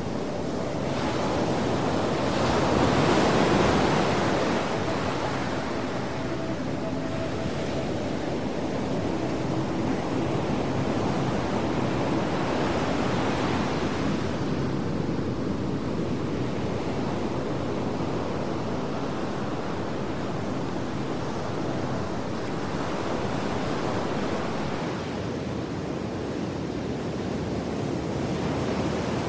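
A steady rushing noise, like surf or wind, swelling and easing slowly. It is loudest about three seconds in, with faint held tones underneath.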